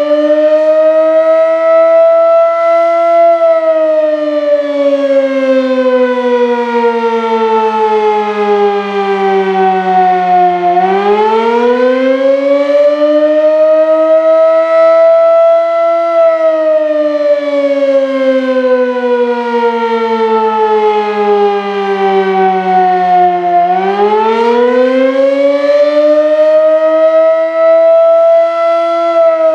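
Sterling M-5 motor-driven fire siren sounding loudly, its pitch rising for about three seconds and then sliding down for about seven. This rise and fall repeats about every thirteen seconds, a little over two times.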